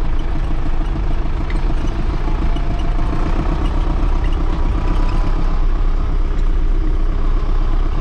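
Tractor diesel engine running steadily while the tractor drives along, heard from inside the cab.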